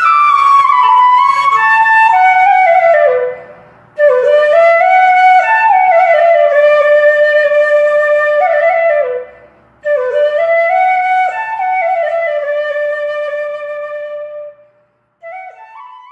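Background music: a solo melody on a wind instrument, played in phrases with brief breaks between them, fading out near the end before a short final phrase.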